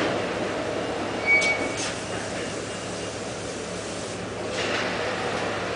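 Steady machinery noise of a seat-molding production line. A couple of sharp metallic knocks and a brief high squeal come about a second and a half in, and a short hissing rush follows near the end.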